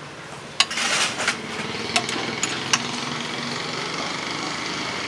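A motorcycle engine running steadily close by, with a few sharp metallic clinks of a serving ladle against steel plates and a brief scraping hiss about a second in.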